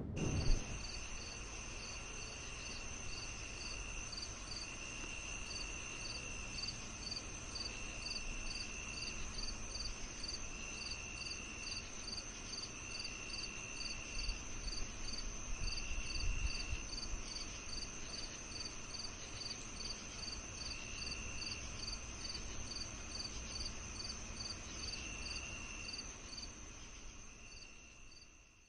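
Crickets chirping in a chorus: a continuous high buzz, short chirps repeating evenly a few times a second, and a lower trill that comes and goes in phrases of about a second. It fades out near the end.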